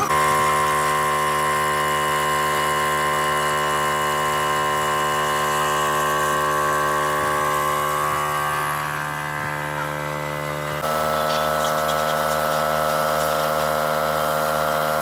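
A motor-driven workshop machine running steadily with a constant pitch. About eleven seconds in it switches abruptly to a different steady pitch.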